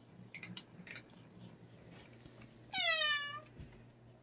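A cat meows once, a short call falling slightly in pitch about three seconds in. A few soft clicks sound in the first second.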